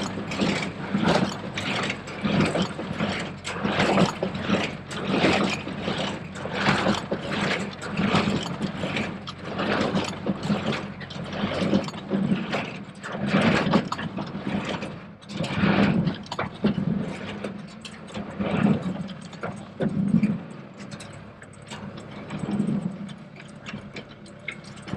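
New Holland 273 square baler's plunger and drive clanking in a regular rhythm of about one stroke a second over the steady hum of the tractor. The strokes spread further apart and grow fainter in the last several seconds as the baler winds down.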